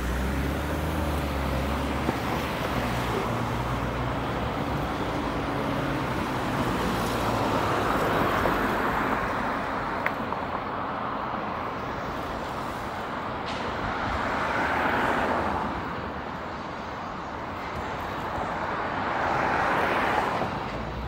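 Road traffic heard from a moving bicycle: cars passing close by, their tyre and engine noise swelling and fading three times. A vehicle's engine hums low nearby in the first few seconds.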